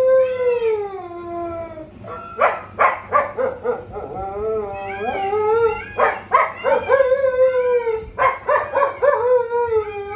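Husky howling with its muzzle raised: several long wavering howls that fall in pitch at the end, broken up by clusters of short, quick yipping calls.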